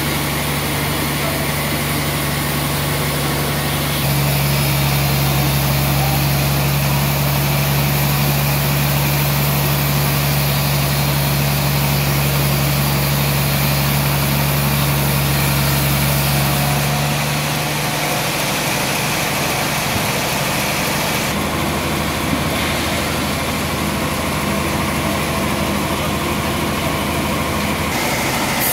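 Band sawmill running with a steady, deep mechanical hum while the blade cuts a slab from a suar wood log. The hum grows louder about four seconds in and eases off a little more than halfway through.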